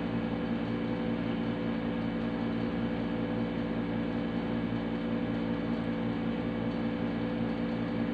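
A steady machine hum with several held tones.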